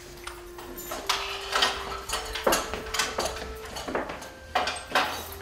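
Steel pots and small dishes being handled on a table: a run of scattered clinks and knocks, several a second at times.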